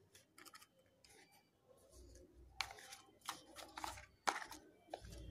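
A cardboard smartphone box and paper leaflets being handled: a run of quick rustles and knocks that grow busier about halfway through, with one sharp knock near the end.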